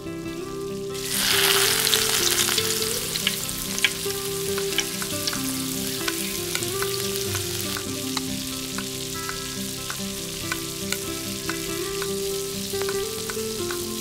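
Food frying in a miniature pan: a loud sizzle starts suddenly about a second in as it hits the hot fat, then settles into a steady sizzle with small clicks of stirring. Soft background music plays underneath.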